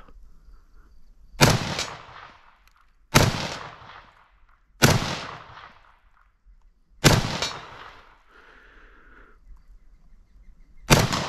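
Five single rifle shots from an M1 Garand chambered in .308, fired semi-automatically about two to four seconds apart. Each shot trails off over about a second.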